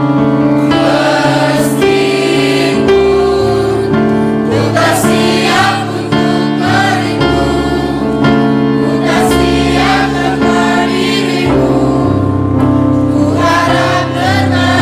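Mixed choir of women and men singing in parts, holding long chords that move from one to the next.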